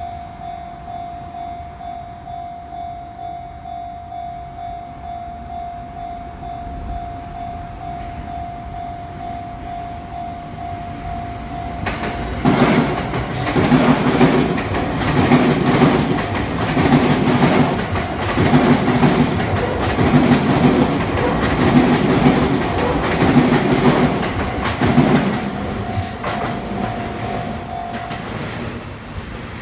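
Level-crossing warning bell ringing with a steady repeating tone, then a Sotetsu electric train passing over the rail joints about twelve seconds in. Its wheels clatter in a regular clickety-clack, about one beat every second and a half, for some twelve seconds. The crossing bell is heard again as the train clears, and it stops near the end.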